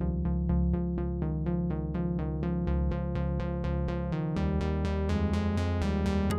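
Background electronic music: quick, evenly repeating synthesizer notes over a steady low bass.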